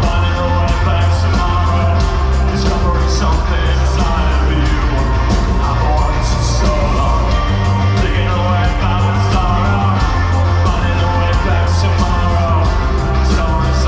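Live band playing a song, with a singer over drums and heavy bass, heard from among the audience.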